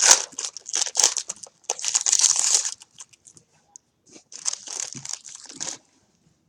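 Trading card pack wrapper being torn open and crinkled: crackling for about three seconds, then a shorter spell of crinkling a little after four seconds in.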